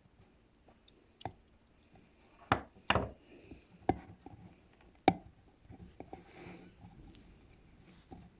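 Handling noises from a lamp bulb and its small parts being worked on: a handful of sharp taps and clicks, the loudest between about two and a half and five seconds in, with faint rubbing between them.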